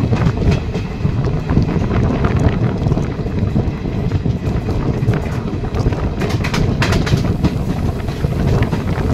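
Express passenger train running at speed, heard from an open coach door: steady rumble and rattle of the wheels on the track, with wind buffeting the microphone. A few sharp clacks come about six to seven seconds in.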